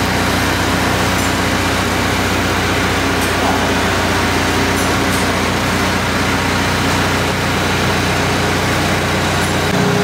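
Caterpillar skid-steer loader's diesel engine running steadily under load as it pushes a heavy machine tool on its forks. The engine note changes abruptly near the end.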